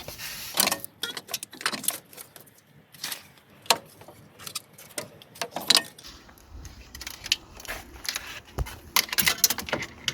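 Old clutch cable of a 2003 Suzuki Wagon R being pulled out of the car from the footwell, with irregular clicks, rattles and scraping as the cable and its sleeve drag through.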